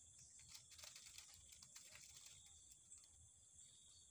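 Near silence: faint, steady high chirring of insects, with a few faint light ticks and rustles in the first half.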